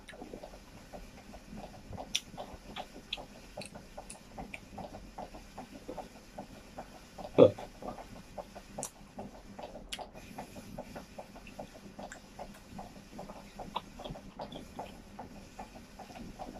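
Close-up eating sounds: chewing and lip smacking, with many small wet mouth clicks. About seven seconds in there is one loud short low thump.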